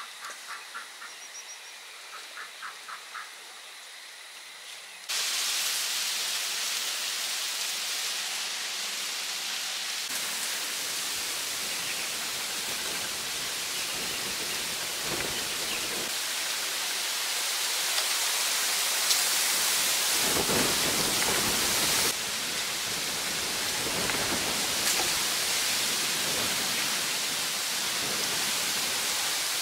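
Two short runs of rapid chirping calls over quiet background. About five seconds in, a loud steady rushing hiss of water cuts in abruptly, like heavy rain or a rushing stream, and it carries on with occasional changes in level.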